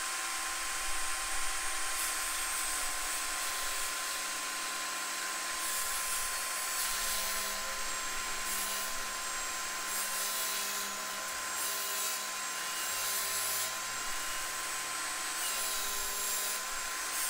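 DeWalt DWE7492 jobsite table saw running and cutting a large PVC pipe as the pipe is turned over the blade, a steady high whine throughout.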